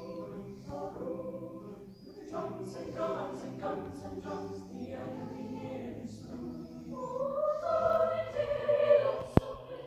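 Mixed choir singing, the voices swelling louder a couple of seconds before the end. A single sharp click sounds just before the end.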